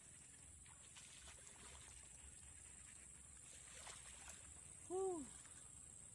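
Near-quiet open-air background with a steady high-pitched hiss and a few faint ticks. About five seconds in comes a short voice-like call that rises and then falls in pitch, the loudest sound.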